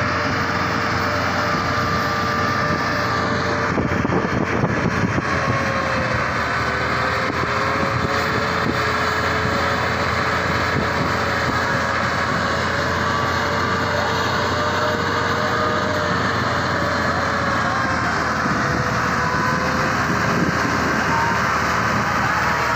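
Tractor engine running steadily under load in deep mud, its pitch drifting slowly up and down, with a few knocks about four seconds in.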